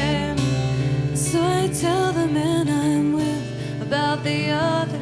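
Background song with strummed acoustic guitar and a melody over it.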